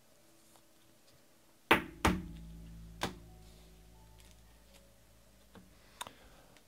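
Two heavy thuds about half a second apart, the second leaving a low ring that fades over a second or so, then a lighter knock about a second later and a small click near the end.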